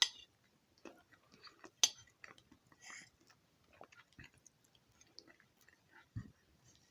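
A person chewing and eating, with wet mouth smacks and small sharp clicks, the sharpest right at the start and about two seconds in.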